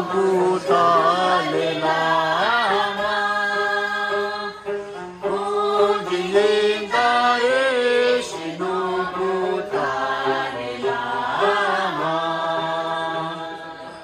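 Unaccompanied singing by several voices, a slow melody of held notes with wavering turns; it trails off near the end.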